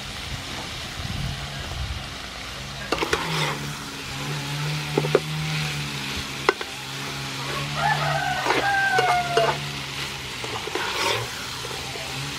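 Shrimp sizzling in hot oil in a frying pan while a metal spatula stirs them, with sharp scrapes and clicks of the spatula against the pan.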